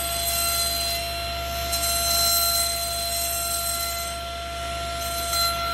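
Table saw running with a steady high-pitched whine while an interlocking foam floor mat is pushed through the blade.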